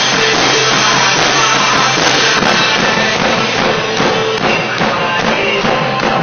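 Rock song by a band with drums and guitar, playing loud and steady. The recording is poor-quality, with no deep bass and a dull top end.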